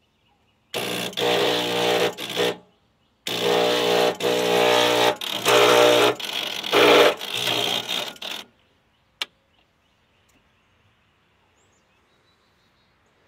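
Agway garden tractor's starter cranking the engine in two tries, one of about two seconds and one of about five, without it catching, on a weak battery boosted by a jump pack. A single sharp click follows a little later.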